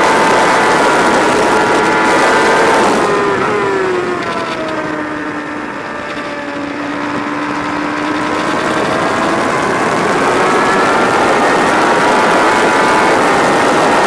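Sport motorcycle engine heard onboard at high revs with a constant rush of wind. About three seconds in, the throttle closes and the revs step down for a corner. From about eight seconds the revs climb steadily again as the bike accelerates out onto a straight.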